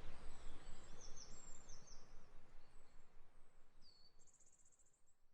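Outdoor nature ambience fading out: several short high bird chirps and a falling whistle over a steady background noise, with a high buzzing trill near the end.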